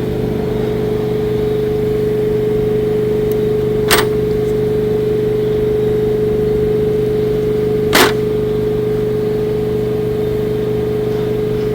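Steady hum of a running motor, with a strong fixed tone. Two sharp clicks come about four seconds apart, a third and two thirds of the way through.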